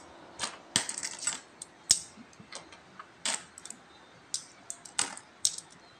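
Coins clicking against one another as they are picked up, counted and stacked in the hand: short, sharp clinks at an irregular pace, a few every second or two.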